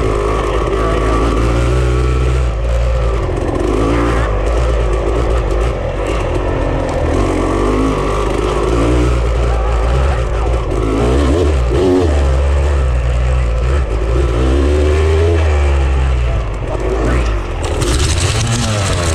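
Off-road vehicle engine running under load, its revs rising and falling repeatedly over rough terrain, with a constant low rumble. Near the end a brighter, rushing noise rises over it.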